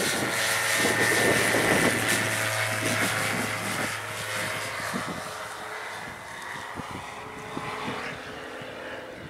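Single-engine propeller light aircraft at takeoff power, passing on its takeoff roll and lifting off. The engine and propeller are loudest in the first two seconds, then fade steadily as the plane climbs away.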